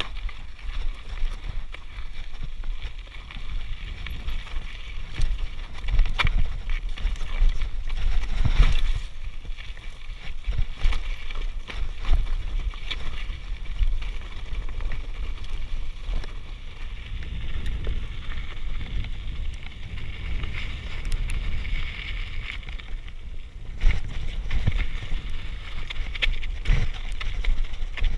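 Mountain bike ridden over rocky singletrack: a continuous rumble of tyres over rock and gravel with wind on the microphone, broken by scattered sharp knocks and rattles from the bike jolting over rocks.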